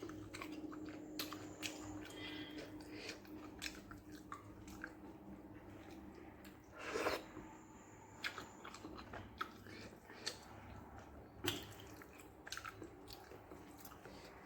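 Close-up chewing and wet mouth sounds of someone eating rice with a spicy kara kuzhambu, with many small clicks and two louder smacks, one about halfway through and one later.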